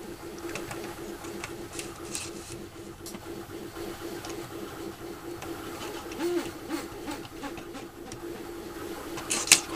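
Small clicks and taps of hands working a soldering iron against wires on a switch, over a steady hum, with a sharper click near the end.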